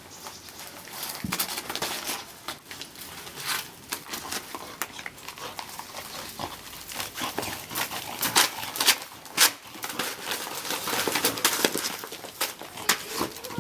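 A Labrador retriever tearing and rustling at gift wrapping with its mouth and paws, in irregular crackles and crinkles; the loudest rips come past the middle.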